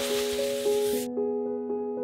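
Background music: a gentle piano-like melody of sustained notes. A steady hiss under it cuts off suddenly about a second in.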